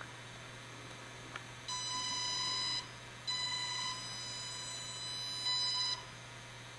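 High-pitched electric whine from the blimp gondola's small motors as the propeller thrust vector is being driven. It comes in two stretches: one about a second long, then a longer one of nearly three seconds that grows a little louder just before it cuts off.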